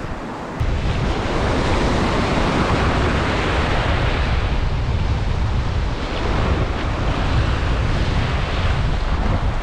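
Ocean surf washing over a rocky reef shoreline close by, with wind buffeting the microphone. It jumps louder about half a second in, then runs on steadily.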